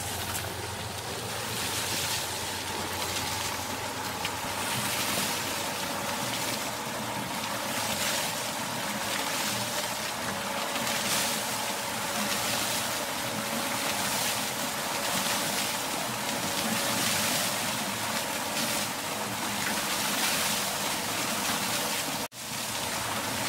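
Water pouring from a pipe onto a homemade bucket water wheel and splashing as the wheel turns, a steady rushing that swells faintly about once a second, with a faint steady hum underneath. The sound cuts out briefly near the end.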